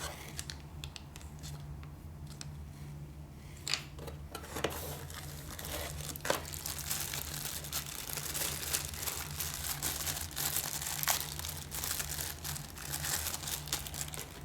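Plastic packaging crinkling and tearing as it is handled and unwrapped, with scattered sharp clicks at first and dense crinkling from about halfway through. A steady low hum runs underneath.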